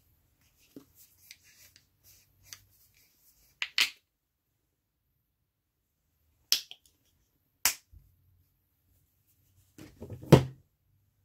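Scattered short sharp clicks and taps: a pair, then two single ones a second apart, then a louder quick cluster of knocks near the end.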